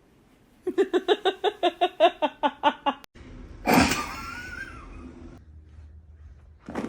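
A person laughing in a rapid run of high-pitched 'ha' pulses, about seven a second, for a little over two seconds. After a short pause comes a brief breathy cry whose pitch rises and then falls.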